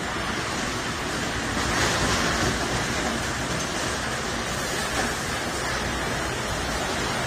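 Steady rushing noise of a tornado's storm wind and heavy rain, swelling slightly about two seconds in.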